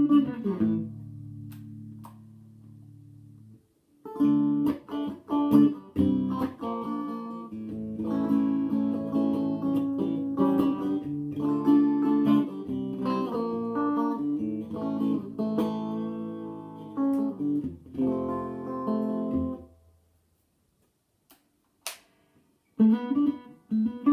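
1983 Tokai ST50 Stratocaster copy, mid-60s model, played clean through a Tokai TA-35 transistor amp. A chord rings and fades, then after a short break about four seconds in come picked chords and single notes, ending on a ringing chord that dies away. A couple of faint clicks follow, and playing starts again near the end.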